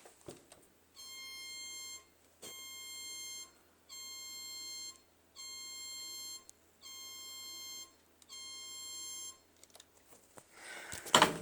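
Mock emergency alert (EAS) alarm: a buzzy, air-horn-like tone sounding six times, each blast about a second long with short gaps between. It is a fake alert made as a mock, not a real national alarm.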